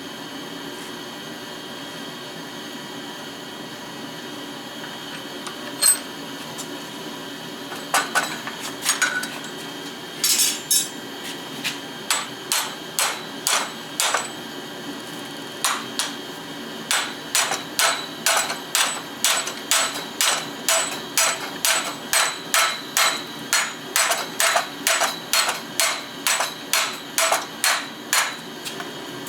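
Hand hammer striking a railroad spike on an anvil while forging it: a lone blow about six seconds in, a few scattered blows, then a steady run of about two blows a second, over a constant background hum.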